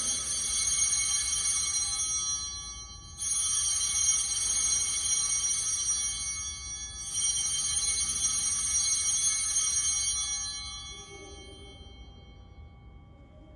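Altar bells (Sanctus bells) rung three times for the elevation of the chalice at the consecration. The first ring is already sounding at the start, with fresh rings about three and seven seconds in. Each rings bright and high, and all die away after about ten seconds.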